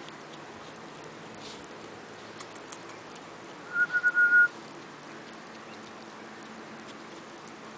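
Hedgehog with a cold giving a short squeaky, whistling sneeze: about five quick pulses at one high pitch, together under a second long, a little before the middle. A few faint light ticks come before it.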